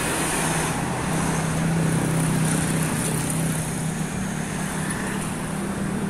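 Road traffic passing close by: motorcycles and cars going past, with a steady low engine hum that sets in about a second in.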